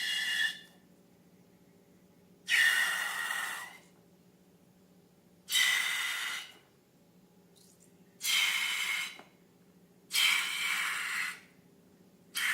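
Repeated bursts of rushing air, five times, each about a second long with a steady high whistle in the hiss, spaced two to three seconds apart.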